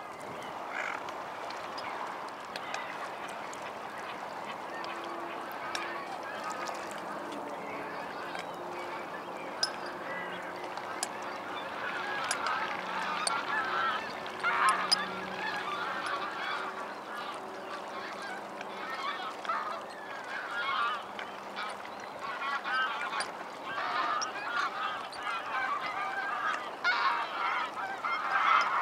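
A flock of gulls calling, many short calls overlapping, growing busier from about twelve seconds in.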